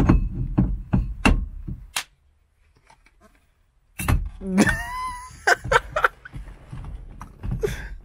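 Sharp plastic and metal clicks and knocks of a Momo collapsible steering-wheel hub being handled and pushed onto a car's steering column, stopping for about two seconds in the middle. A brief high squeak follows a loud knock about halfway in.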